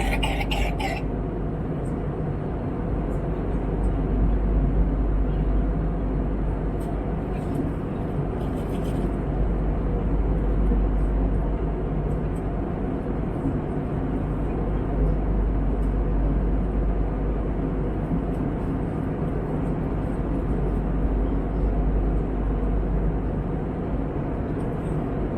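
Airbus A321neo cabin noise in flight: a steady rush of airflow and drone from the turbofan engines, heaviest in the low end and holding an even level.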